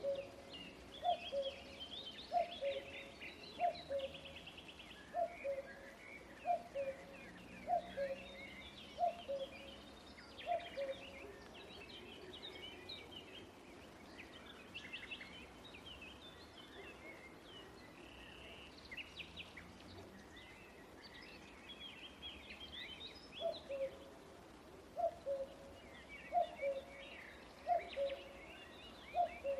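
Outdoor birdsong: many small birds chirping and twittering, with one bird giving a low two-note falling call over and over, about once every second and a half, through the first third and again near the end.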